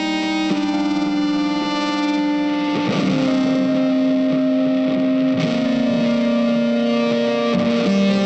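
Background music: distorted electric guitar holding chords that change every few seconds, with no singing.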